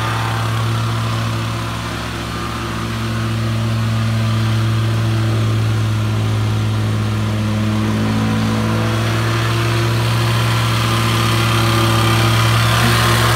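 Gas-powered vibratory plate compactor running steadily, its small engine and vibrating plate packing down the dirt of a jump. The level dips slightly about two seconds in, then holds steady.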